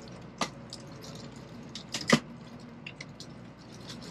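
Scattered sharp clicks and knocks, the loudest about two seconds in, over a faint steady hum inside a stopped bullet-train carriage.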